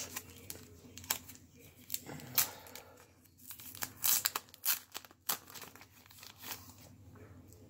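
Plastic packaging crinkling and tearing, with light clicks of a hard plastic trading-card holder being handled, in short irregular sounds.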